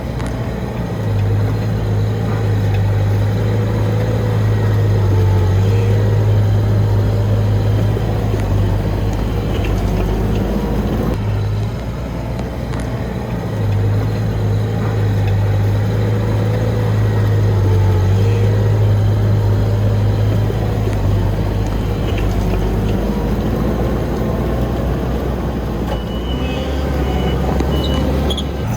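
Heavy construction machine's diesel engine running under load, its pitch swelling and easing in slow waves. A brief high-pitched beeping comes near the end.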